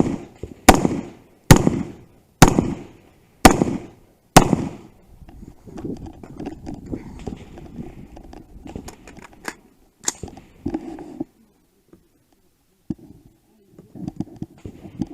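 Gunshots in a steady string, five about a second apart, then a stretch of handling and movement noise and a single further shot about ten seconds in.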